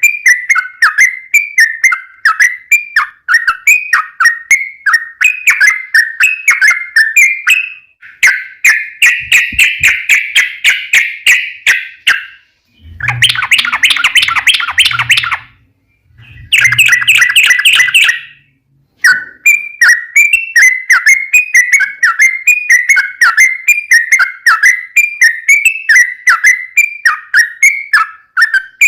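Yellow-vented bulbul (trucukan) singing a long, rapid run of repeated chirping notes, broken by three short pauses about halfway through.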